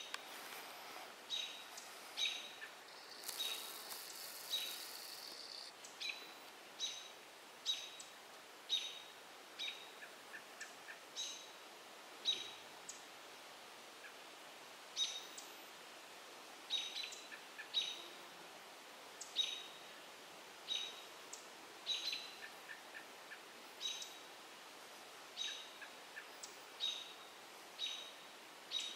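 American robins giving sharp alarm calls about once a second, mobbing a great gray owl perched in their territory. A few faint quick runs of soft ticks sound between them.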